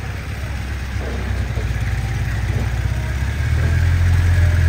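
A vehicle engine idling close by, a steady low hum that grows louder about three and a half seconds in.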